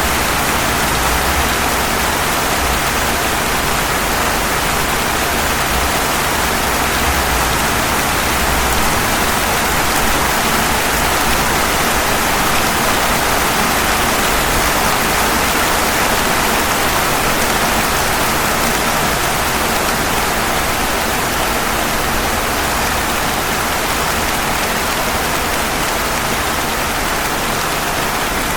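Steady rain falling on pavement: an even, unbroken hiss with no separate drops or thunder standing out.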